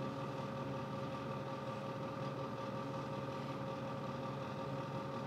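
Steady mechanical hum with a few constant tones, holding level throughout; no distinct knife strokes stand out.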